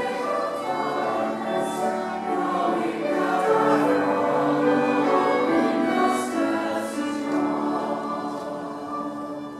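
Mixed choir singing in parts, accompanied by violin and piano, growing softer near the end.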